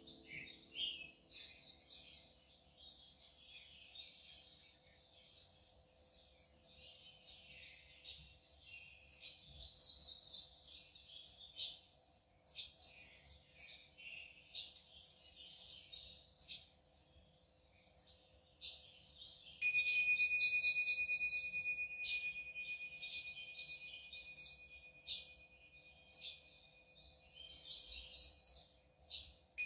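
Dense chorus of many small birds chirping and twittering, with a faint steady hum underneath. About two-thirds of the way through, a steady high tone starts abruptly and holds over the chirping, making it louder.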